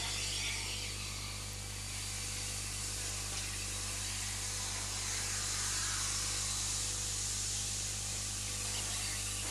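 Steam locomotive standing with steam hissing steadily, over a low mains hum.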